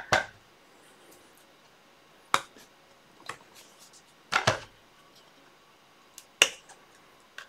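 Sharp clicks and taps from a black picture frame being handled and opened on a tabletop, its backing board and pane knocking against the frame, about four distinct clicks roughly two seconds apart with a few fainter ticks between.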